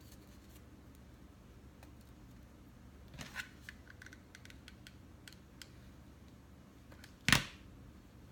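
Light clicks and taps of hands working with paper craft pieces and hot glue at a table, with a small cluster of ticks about three seconds in and one sharp, louder click about seven seconds in.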